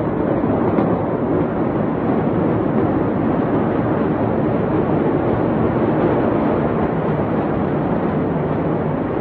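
A steady, loud rushing noise with no separate bangs or crackles.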